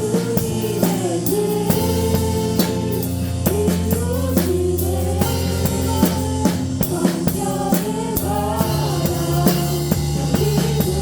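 Live worship band playing a praise song: drum kit beats with snare and kick, sustained bass and keyboard tones, and a sung melody over the top.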